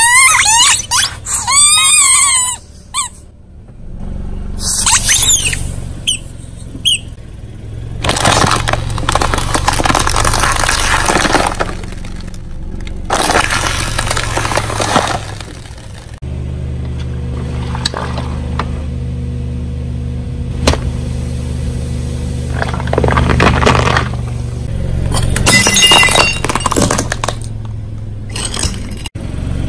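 Rubber squeeze toys squealing several times as a car tyre rolls onto them. Then a car engine hums steadily under repeated crunching and breaking as the tyre crushes brittle objects, ceramic cracking into shards.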